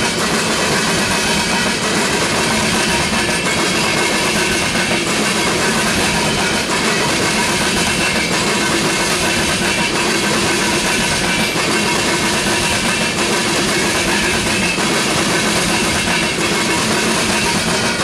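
Loaded ethanol tank cars of a freight train rolling past, their steel wheels making a steady noise on the rails with a few faint, steady high tones in it.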